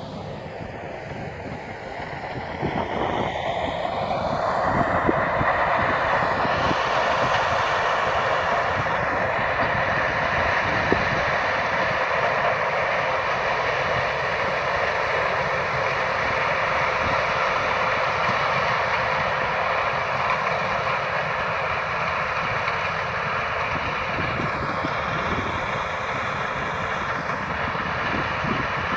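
Claas combine harvester running steadily as it harvests maize with its corn header, a continuous mechanical drone. It grows louder a few seconds in and then holds steady.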